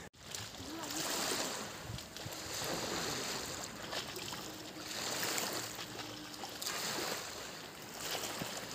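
Small waves lapping and washing against a muddy shoreline, the wash swelling and falling about every two seconds.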